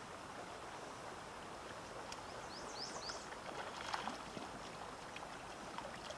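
Steady rush of a flowing river, with a small bird giving three quick rising chirps about two and a half seconds in, and a fish splashing at the surface around four seconds in.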